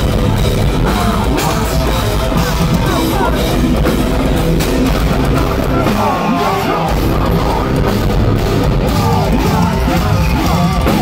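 Metalcore band playing live and loud: a pounding drum kit and heavily distorted electric guitars, dense and unbroken.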